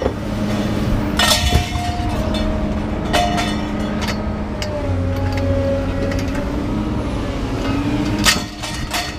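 Engine running steadily while scrap metal clanks and bangs, with a few sharp metallic impacts, as scrap is unloaded at a scrap yard.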